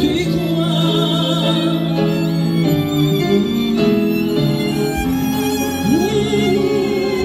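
Live violin playing a melody with vibrato over sustained string accompaniment that includes a cello, with one note sliding upward about six seconds in.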